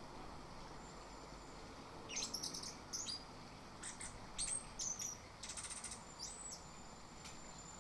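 Chestnut-capped thrush (anis kembang) singing: a quick phrase of varied high chirps, short trills and a brief buzzy rattle, from about two seconds in until past six seconds, over a faint steady hiss.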